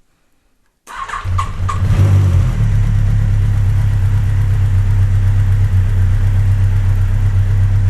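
Yamaha XJR1200's air-cooled inline-four engine starting: about a second in, the starter cranks briefly, the engine catches with a short rev about two seconds in, then settles into a steady idle. This is its first start after a cylinder-head rebuild with the valve clearances freshly set.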